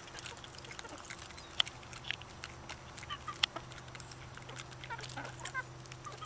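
Backyard hens clucking and chirping softly among scattered sharp pecking clicks as they feed on corn. The loudest clicks come about one and a half and three and a half seconds in.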